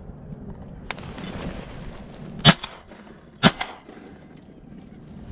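A shotgun fired twice, about a second apart, each shot followed by a short, fainter echo.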